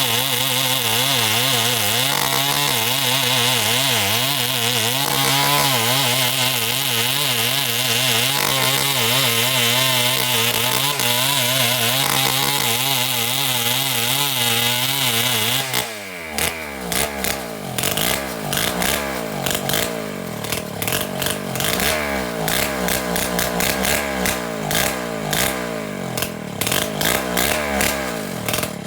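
Two-stroke chainsaw running at high revs with its pitch wavering, as when cutting into wood. About halfway through it suddenly drops to low, uneven running, with spitting, irregular firing and small rises in revs.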